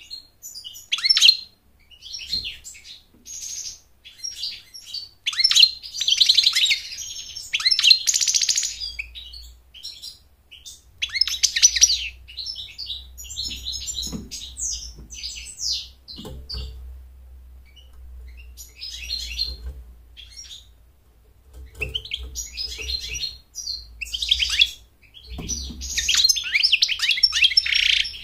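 European goldfinch singing: bursts of fast, high twittering and chirps, with short pauses about a third and two-thirds of the way through.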